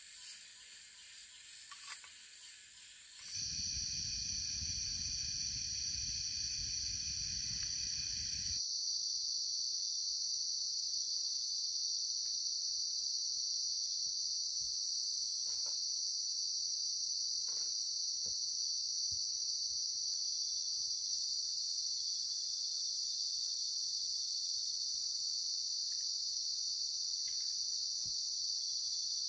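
Steady high-pitched chorus of night insects in the forest, starting with a cut about three seconds in after a different, busier daytime forest sound. A low rumble lies under it for the first five seconds, and a few faint clicks come later.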